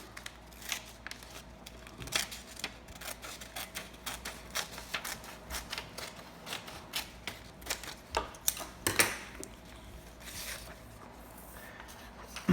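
Scissors cutting through a folded sheet of printing paper: a run of irregular snips and paper crackles, busiest about two seconds in and again near nine seconds.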